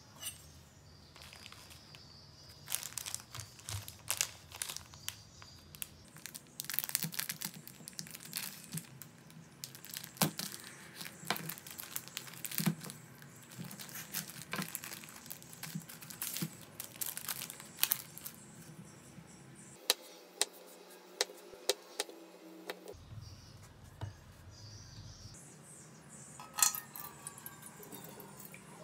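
Plastic wrapping around a block of tempeh crinkling and tearing as it is handled and cut open with a kitchen knife, with sharp clicks of the blade against a wooden cutting board. Near the end, water pouring into a frying pan.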